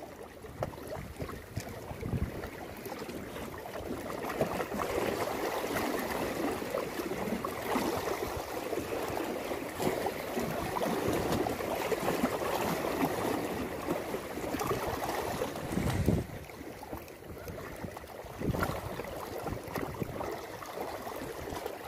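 Sea waves lapping and splashing against breakwater rocks, a steady wash that swells louder through the middle, with a few low thumps.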